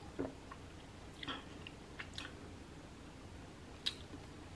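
Quiet mouth sounds close to the microphone: a swallow of soda about a quarter second in, then a few small, scattered lip and tongue clicks.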